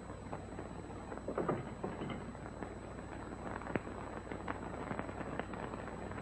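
Soft thumps and rustles of pillows and bedding being handled, with scattered light clicks, over the steady low hum of an old film soundtrack.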